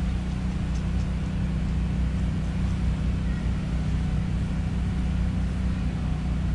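Steady low engine rumble of city street traffic, an even hum with no breaks or changes.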